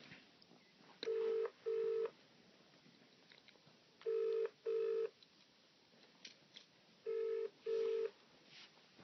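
British telephone ringing tone on an outgoing call from a mobile phone: three double rings about three seconds apart, the call still ringing unanswered.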